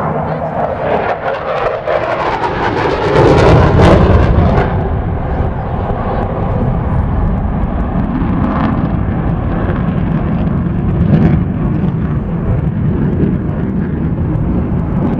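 Airplane flying past, its engine noise swelling to a loud roar about four seconds in, then settling into a steady low rumble.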